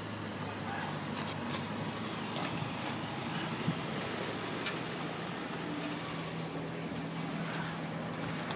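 Tractor engine running steadily at idle close by, with a few light metallic clicks. A second steady tone joins the hum about halfway through.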